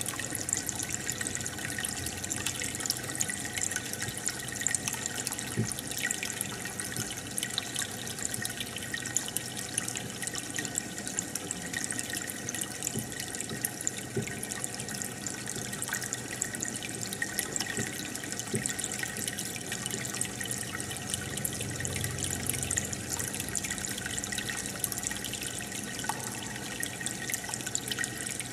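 Aquarium water trickling and bubbling steadily, with a dense patter of small drips and splashes.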